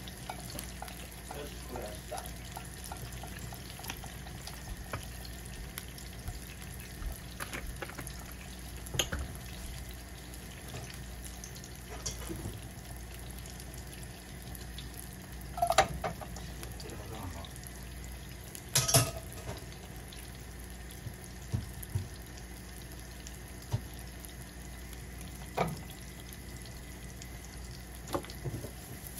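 Salmon fillets frying in a nonstick pan: a steady sizzle with small crackles, broken now and then by the knock and clink of cookware, loudest twice near the middle.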